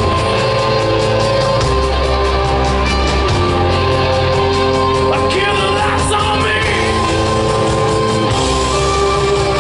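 Rock band playing live, loud and steady: electric guitars, bass and drums with cymbals, and a singer's voice over them.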